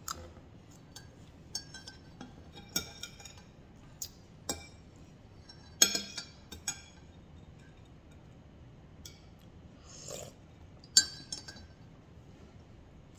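Metal spoon clinking against a ceramic mug as coffee is stirred: a scattered run of light clinks, with sharper ones about six and eleven seconds in.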